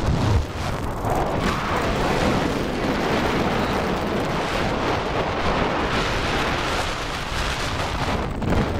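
Steady wind rush and rumbling buffeting on the microphone in flight, over a paramotor's two-stroke engine running at low throttle.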